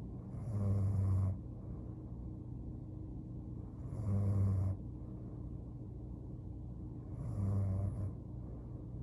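A young woman snoring in her sleep: three snores about three and a half seconds apart, each about a second long and low-pitched, over a steady low hum.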